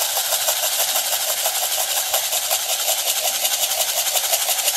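A small clear plastic pot with a lid, used as a homemade shaker, shaken fast and steadily: a loud, continuous rattle.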